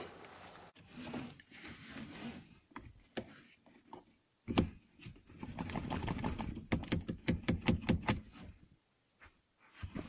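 A seat belt's metal latch plate being jabbed repeatedly into a broken buckle: clicks and knocks of metal on the plastic buckle with rustling of the belt, a sharp knock about four and a half seconds in and a quick run of clicks near the end. The buckle no longer catches the latch plate.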